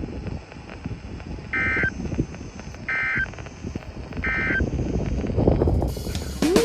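NOAA Weather Radio's SAME end-of-message data bursts: three short, buzzy digital chirps about 1.3 s apart, over the broadcast's background static and hiss. They signal the end of the alert transmission after the weekly test.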